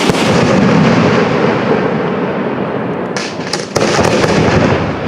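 Aerial fireworks shells bursting: a loud bang at the start followed by a long echo, a patch of crackling about three seconds in, then a second bang with its own echo.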